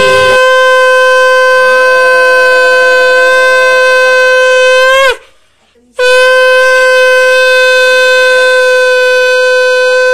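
Conch shell (shankha) blown in two long, steady blasts. The first breaks off about five seconds in with a slight drop in pitch, and the second starts about a second later and holds on.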